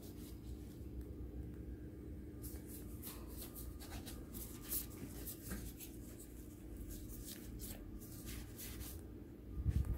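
Faint rubbing and brushing of hands on cooked lasagna noodles laid over a foil pan, with a low bump near the end.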